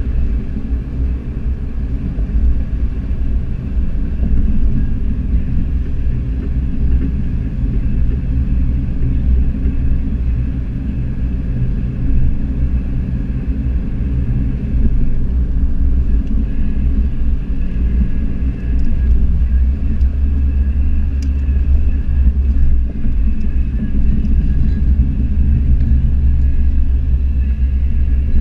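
Car engine and road noise heard inside the cabin at a steady lapping pace, a low steady drone that grows a little louder about two-thirds of the way through.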